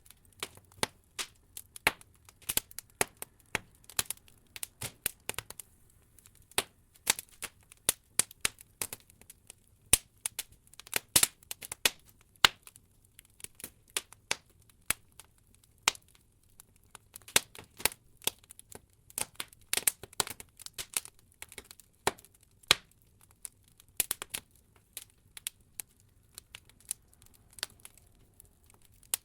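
Wood logs burning in an open fireplace, crackling with irregular sharp pops and snaps, several a second, over a faint low rumble.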